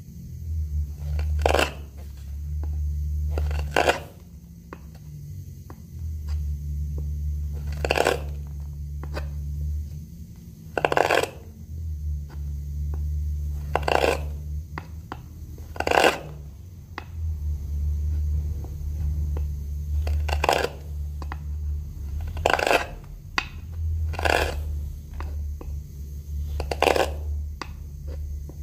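Carving gouge digging into a mulberry wood blank, with sharp knocks every two to four seconds as chips break loose, over a low hum that comes and goes.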